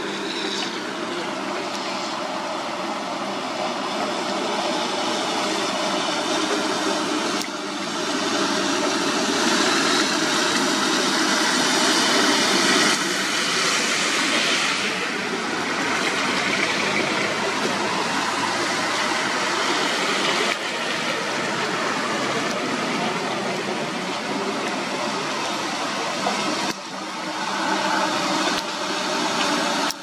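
Road traffic on wet asphalt: truck and car engines running as they approach, with tyre noise from the wet surface. The sound changes abruptly a few times.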